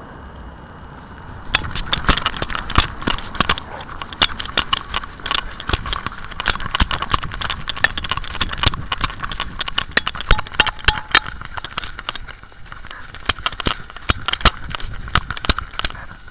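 Rapid, irregular knocks and rattles over a rubbing hiss from a small pet camera strapped to a Jack Russell terrier, jostling as the dog moves. They start about a second and a half in and stop just before the end.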